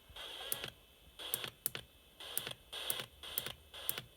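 Radio receiver giving short bursts of static, each starting with a sharp click, about twice a second at uneven spacing.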